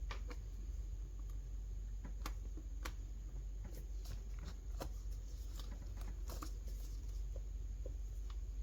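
Faint, irregular small clicks and light scraping as a prying tool and gloved fingers work at a laptop keyboard, trying to slide it out of its bezel. A steady low hum runs underneath.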